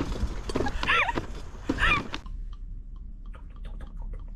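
Women's voices calling out and laughing for about two seconds. The sound then cuts to soft, irregular quick taps and clicks as red wine is poured from a bottle through a metal pourer spout into a wine glass.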